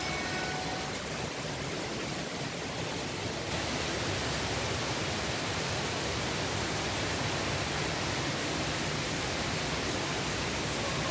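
Rain falling steadily, a dense even hiss that grows a little louder about three seconds in.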